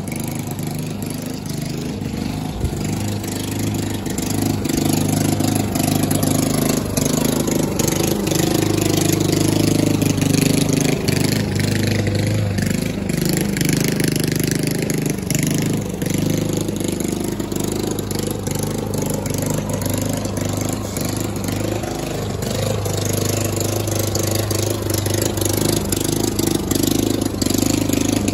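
Walk-behind gas lawn mower running steadily while mowing, its sound swelling and easing as it moves nearer and farther away.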